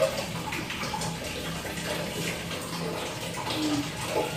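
Water running steadily, an even hiss, with a faint low hum underneath for part of the time.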